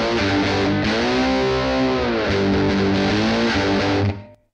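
Background music: electric guitar holding chords, with a bend that rises and falls back in the middle. It cuts off suddenly near the end.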